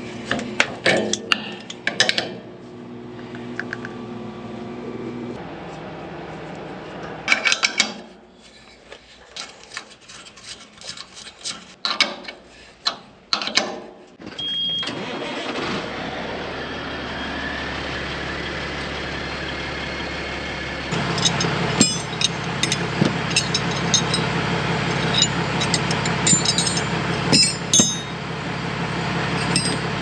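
Metal clinks and clicks of a wrench working a pipe fitting, then a short high beep about halfway through. A semi truck's diesel engine then starts and runs steadily, growing louder for the last third with clattering on top.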